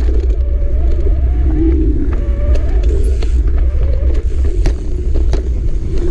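Mountain bike ride down a bumpy dirt forest trail: steady wind rumble on the microphone with tyre noise, a wavering hum, and several sharp knocks and rattles as the bike hits bumps.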